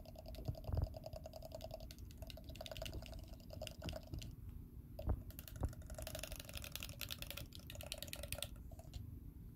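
Metal utensil stirring a milk, egg and mashed banana mixture in a glass measuring jug: rapid light clinks against the glass with liquid sloshing, quickest from about six seconds in.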